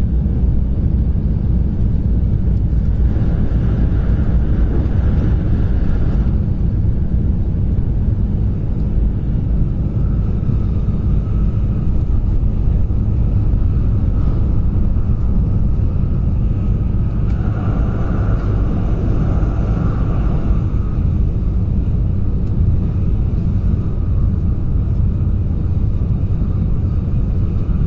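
Shinkansen bullet train heard from inside the passenger cabin at high speed: a steady, loud low rumble with a rushing hiss, which grows brighter for a few seconds twice, about three seconds in and again about seventeen seconds in.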